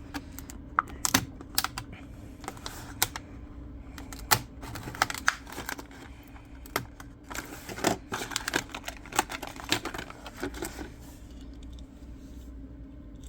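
Plastic blister packaging of a Matchbox diecast car being pried and torn open by hand: irregular sharp clicks and crackles of the plastic and card, which stop about 11 seconds in.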